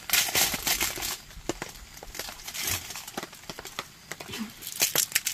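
Plastic wrapper of an individually wrapped American cheese slice being peeled off by hand, crinkling in irregular crackles, busiest at the start and again near the end.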